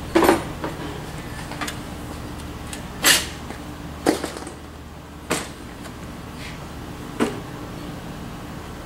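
Five sharp knocks and clunks from hardware at the back of a scratch-built RC bulldozer as it is handled, spread over several seconds, over a faint steady hum.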